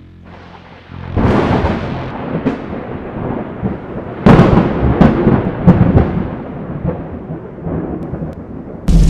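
Thunder: a rolling rumble that builds about a second in, with two sharp cracks about four and five and a half seconds in, then slowly dies away.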